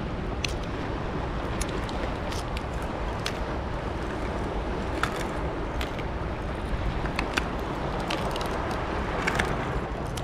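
Knife cracking and scraping at a sea urchin's shell, a scattered run of sharp clicks, over a steady wash of wind and surf.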